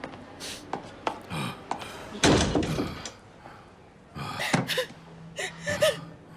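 A door bangs shut with a loud thud about two seconds in, among smaller knocks and scuffles. Short gasping breaths follow.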